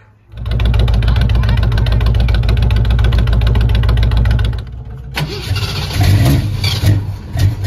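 A loud engine running steadily for about four seconds, then a sharp click and a car engine idling unevenly at a lower level: the 1963 Ford Falcon running as it is driven out.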